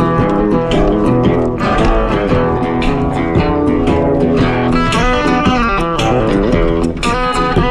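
Background music led by guitar, with a bass line and a steady beat.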